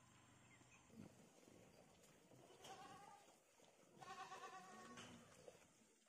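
Goats bleating faintly, twice: a short bleat a little under three seconds in, then a longer one about a second later.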